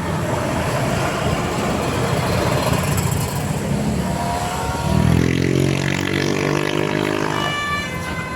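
A bus passing close with its engine running, the engine note swelling into a louder steady drone about five seconds in.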